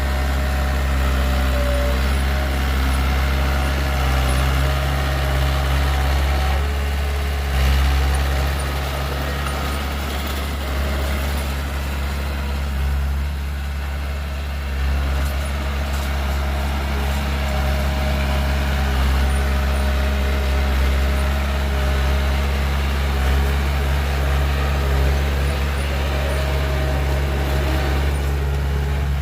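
Heavy diesel engine of an earthmoving machine or dump truck running steadily under light load, with a low, even drone.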